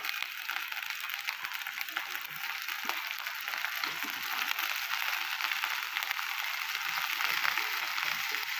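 Water-soaked potato cubes sizzling and crackling in hot oil with green chillies in a kadhai as they are dropped in. The sizzle grows steadily louder.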